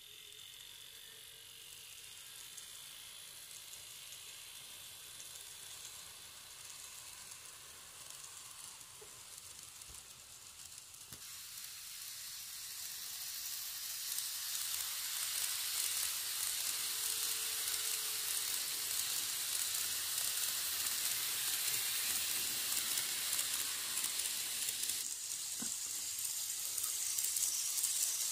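N gauge model train, a 651 series coupled with an E353, running along the track: a steady, high rolling hiss of the small wheels on the rails. It grows louder about halfway through as the train comes close.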